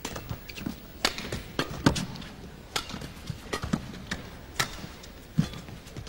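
Badminton rally: a feathered shuttlecock struck back and forth with rackets in sharp, irregularly spaced hits, mixed with the players' footfalls on the court.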